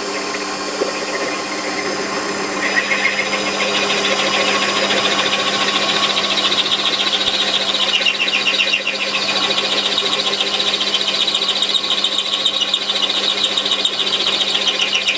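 Warco lathe running with a 20 mm cutter in its chuck, boring out a hole in a workpiece under hand feed, the motor's steady hum underneath. About three seconds in, the cutting noise rises into a rapid, pulsing high rasp that carries on as the cutter works deeper.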